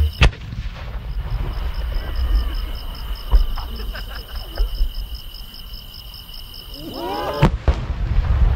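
A large aerial firework shell, a No. 10 (about 30 cm) chrysanthemum, launched from its mortar with two sharp thumps. Crickets chirp steadily while it climbs, and a loud boom near the end as the shell bursts is followed by rumbling.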